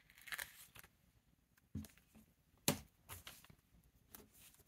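Faint rustling and crinkling of a glossy sticker sheet as a small sticker is peeled off, then light taps and rubbing of fingertips pressing it onto a paper notebook page, with one sharper click a little over halfway in.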